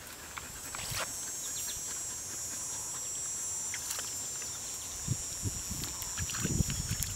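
Dogs moving and splashing in shallow water at the shore, with a few low thumps in the last two seconds. A steady high-pitched buzz sets in about a second in and carries on behind them.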